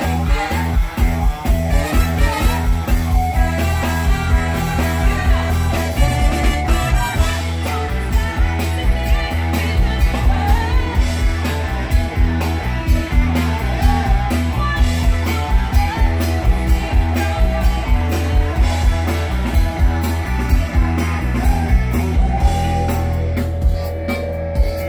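Live band playing on stage, with drums, bass and electric guitar under a singer. A steady beat of about two strong hits a second and heavy bass run throughout.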